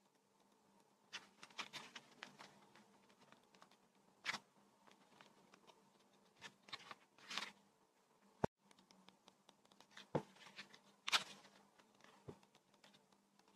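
Paper and packaging being handled: scattered soft rustles and scrapes with a few sharp taps, the loudest about eleven seconds in.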